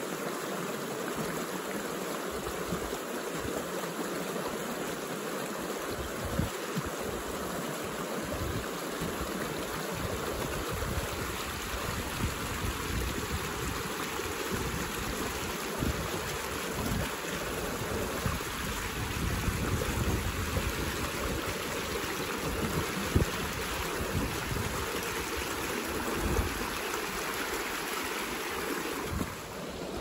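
Shallow creek running over rocks in small riffles: a steady rushing, splashing noise of water. Low gusts of wind on the microphone come and go through the middle, and the water sound drops a little just before the end.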